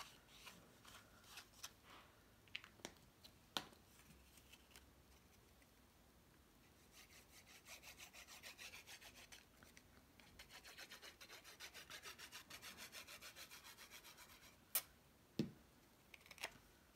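An ink applicator is rubbed quickly back and forth along the edge of a green cardstock piece, inking it for depth; the strokes are faint and come several a second. Light taps and rustles of the paper being handled come before, and a few sharp clicks near the end.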